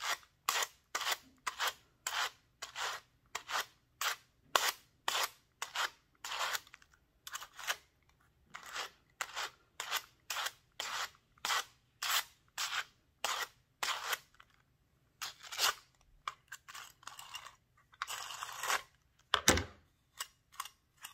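Two wire-bristled pet slicker brushes drawn against each other to card Samoyed fur into roving: repeated scratchy strokes, about two a second, with a short pause partway through. A thump comes near the end.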